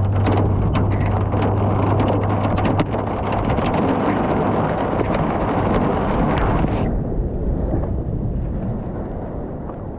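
Hail storm: hailstones and rain pelting down as a dense rush of noise with many sharp separate hits. About seven seconds in, the sound turns duller and the hits come fewer. A steady low hum runs under the first few seconds.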